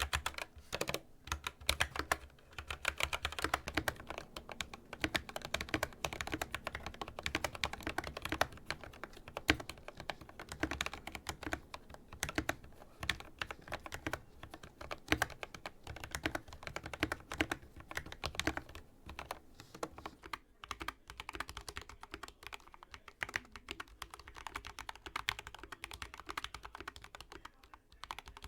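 Continuous fast typing on a mechanical keyboard with lubed Gateron Yellow linear switches and PBT keycaps: a dense run of quick, muted key clacks, thinning a little about two-thirds of the way through.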